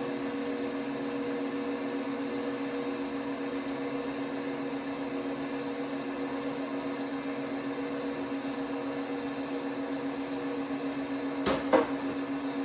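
LG WT5680HVA top-load washer's direct-drive motor running with a steady hum. Two sharp clicks come near the end.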